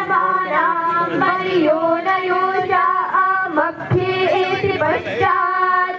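Devotional aarti hymn sung with long held, wavering notes and short breaks between phrases.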